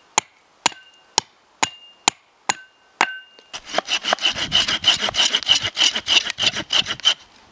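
Seven sharp knocks with a short ringing tone, about two a second, as the top of an upright wooden stick stuck in the ground is struck. About three and a half seconds in they give way to a folding hand saw cutting through a branch with quick back-and-forth strokes, which stop shortly before the end.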